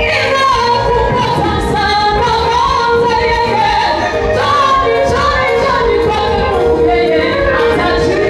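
A gospel choir singing live, with a woman's voice leading, over instrumental accompaniment with a steady low beat.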